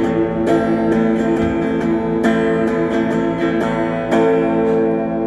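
Acoustic guitar strumming the closing chords of a song, the last chord struck about four seconds in and left to ring.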